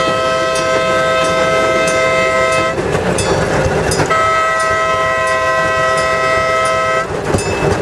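An old farm bell mounted on a railroad motorcar is rung over and over, about one strike every two-thirds of a second. Over the bell, a two-note horn sounds two long blasts: the first ends a little under three seconds in, and the second runs from about four to seven seconds in. A steady low rumble lies underneath.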